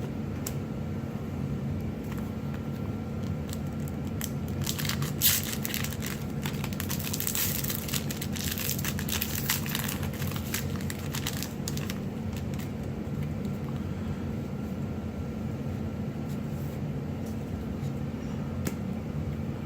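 Foil booster pack wrapper being pulled open and crinkled, with cards shuffled out of it; the crinkling is thickest between about five and twelve seconds in, over a steady low hum.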